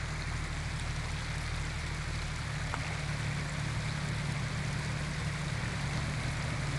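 Jeep Cherokee's engine running low and steady as it crawls slowly over a wet, rocky trail, with a steady hiss of running water around it.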